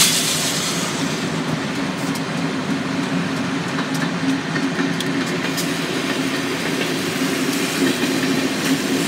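Union Pacific diesel locomotives and their train rolling by on the rails: a steady low rumble with a few faint clicks. It is heard from a moving car alongside, mixed with the car's road noise, and there is a brief burst of hiss right at the start.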